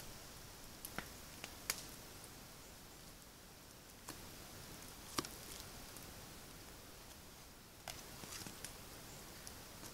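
Fillet knife cutting along a pike's backbone to free a fillet: faint wet slicing with a few scattered sharp clicks, the loudest about five seconds in and a small cluster near the end.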